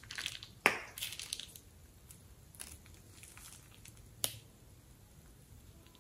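Plastic piping bag being squeezed and crumpled in the hand to press out the last of the slime. Crackling rustles in the first second and a half, with a sharp click just over half a second in and another a little after four seconds.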